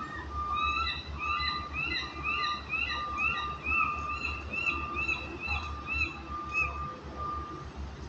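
Gulls calling in a rapid series of clear, arched notes, about two to three a second, while squabbling with crows over food. A vehicle's reversing beeper keeps beeping underneath, with a low street rumble.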